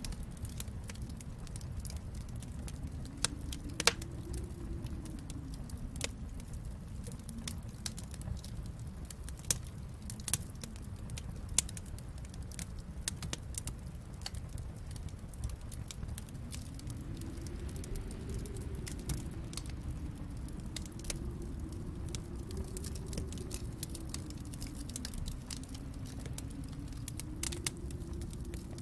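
Wood fire crackling and popping, sharp irregular pops with a few louder ones, over a low steady rumble.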